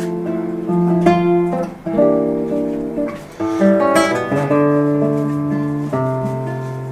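Acoustic guitar playing unaccompanied, with strummed chords and plucked notes struck about once a second and each left to ring.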